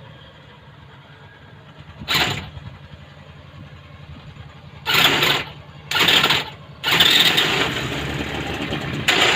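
Robin NBT415 twin-cylinder two-stroke brush-cutter engine being cranked by an added electric starter in four bursts: a short one, two of about half a second, then a longer one of about three seconds. It does not catch, because fuel has not yet reached the engine.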